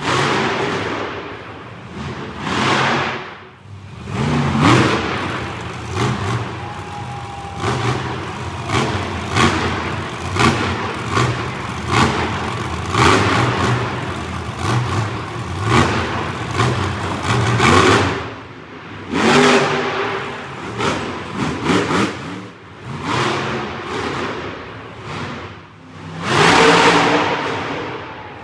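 Monster truck engines revving hard in repeated short throttle bursts, over and over, during freestyle wheelies and jumps.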